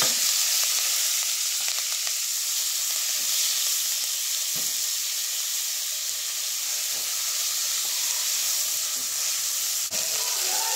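Chopped tomatoes, onion and green chilies sizzling in hot oil in a nonstick pan: a steady frying hiss, with soft scrapes as a spatula stirs them.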